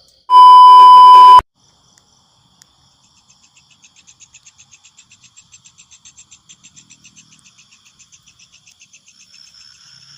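A loud, steady electronic beep tone lasting about a second near the start. Then a faint, fast, evenly pulsing high chirp of night insects begins, at about five pulses a second.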